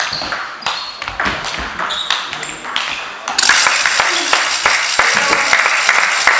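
Table tennis rally: the ball clicking off bats and table in quick, irregular strikes. About three seconds in the rally stops and applause starts, steady through the rest.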